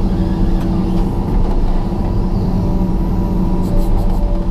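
John Deere 200LC excavator's diesel engine and hydraulics running steadily under load, heard from inside the cab as the machine swings and dumps a bucket into a dump truck. The drone holds a steady pitch, with a few faint light clicks near the end.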